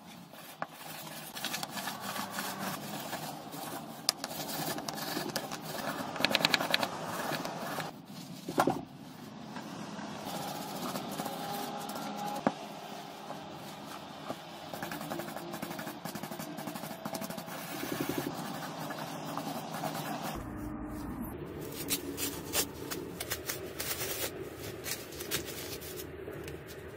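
Paper shop rag rustling and rubbing as gloved hands wipe grease off small angle grinder parts, with a few sharp clicks along the way.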